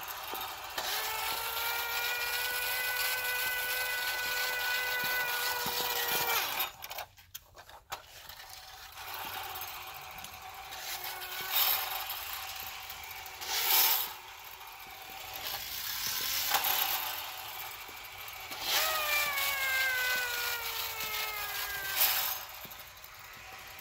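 Clockwork motor of a Marx pressed-steel Fire Chief toy car running with a high, steady whirring tone that stops about six seconds in. Knocks and clatter follow, then the mechanism runs again for about three seconds near the end, its pitch falling as it winds down.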